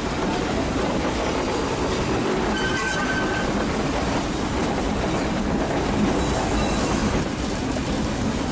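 Nilgiri Mountain Railway metre-gauge train running along the track: a steady rumble and rattle of wheels on rails, with a brief high wheel squeal about three seconds in and a fainter one near the end.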